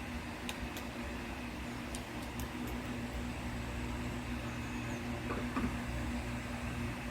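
Steady low mechanical hum with one constant tone over a low rumble, and a few faint ticks.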